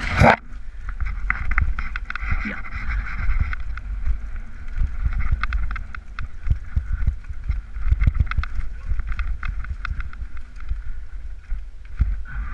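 Mountain bike riding fast down a rough, rooty trail: a continuous rattling clatter of frequent knocks from the bike bouncing over roots, with a steady buzz and heavy wind rumble on the microphone. A loud knock comes right at the start.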